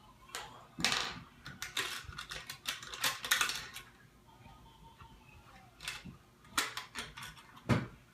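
Small plastic Lego pieces clicking and clattering as they are handled and set down, in quick irregular runs of clicks with a pause in the middle.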